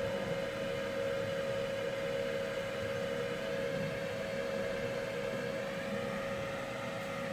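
Solder fume extractor fan running, a steady hum with a constant whine over a faint rushing hiss.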